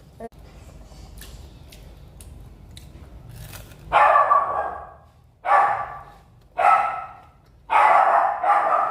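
A dog barking: four barks in the second half, the last one longer and doubled.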